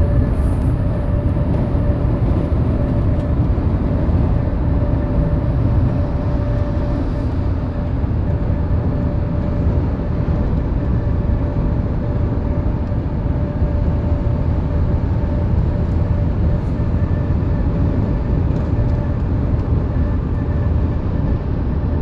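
Inside a Honda Element's cabin at highway speed: steady road and wind noise with a steady whining tone running through it, the random mystery noise that comes only at 50 mph and above and is not the air-conditioning system.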